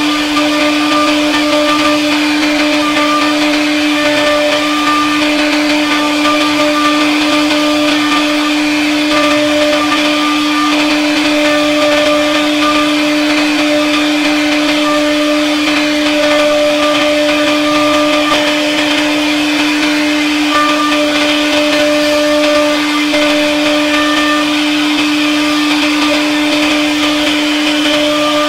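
CNC router spindle running at a steady, high, unchanging pitch while its bit carves relief patterns into a wooden door panel, with a hiss of cutting noise under the motor tone.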